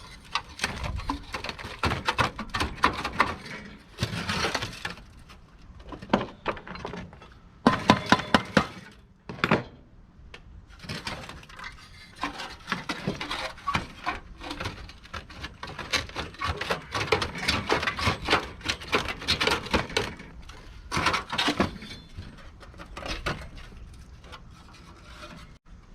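Hand tools working on a rusted Studebaker truck heater while its fasteners are worked loose: a busy, irregular run of clicks, knocks and metal scraping on metal. The loudest part is a rapid clatter about eight seconds in.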